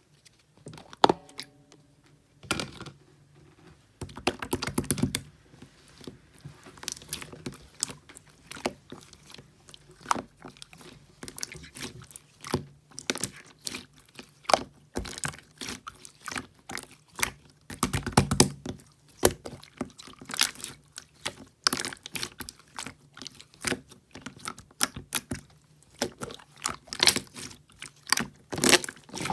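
Close-up handling sounds: a continuous, irregular stream of sharp taps and clicks, with short crinkling or rustling stretches about four to five seconds in and again around eighteen seconds.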